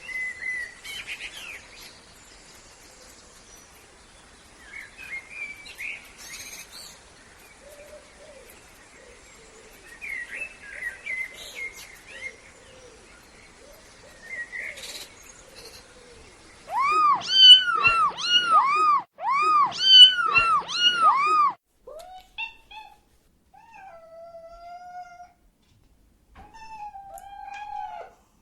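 Recorded animal sound effects: faint chirping calls through the first half, then a loud rapid run of about seven high, arching cat meows, and a few lower, drawn-out meows near the end.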